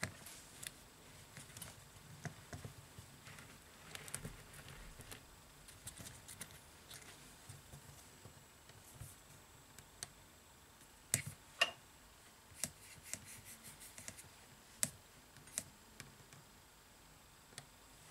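Faint, scattered light clicks and taps of fingers handling the plastic and metal parts of an opened Samsung Galaxy J7 (2016) smartphone and its loose display module. Two sharper clicks come a little past the middle, followed by a quick run of light clicks.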